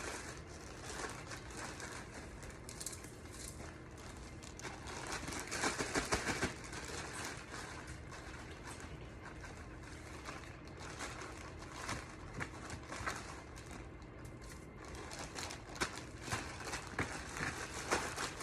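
Quiet kitchen handling noises: scattered light clicks and rustles from working with the coated chicken pieces, with a small cluster of clicks about six seconds in and again near twelve seconds, over a steady low hum.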